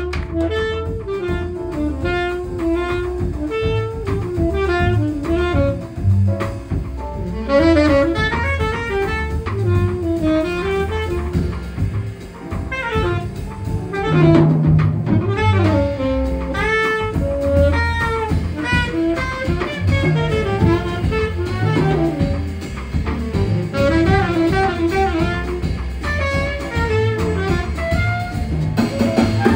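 Jazz background music: a saxophone melody over double bass and drums.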